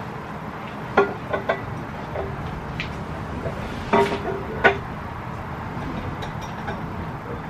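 Glass bottles and a food container clinking and knocking as they are set down and handled on a table, with a few sharp knocks that ring briefly, the loudest about a second in and at about four seconds, over a steady low hum.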